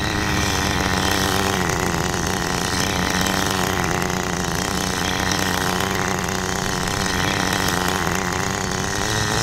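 Small glow-fuel (nitro) engine of a 1/10 Kyosho Pure Ten GP Spider 4WD Mk.2 RC touring car running at low throttle, a steady drone with little change in pitch, as the car is driven slowly for its first break-in tanks.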